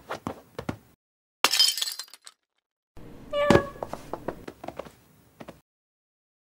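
A ceramic vase knocked over and smashing on the floor. A few small knocks come first, then a brief high clatter, then a loud smash about three and a half seconds in, with pieces clinking and settling for a couple of seconds after.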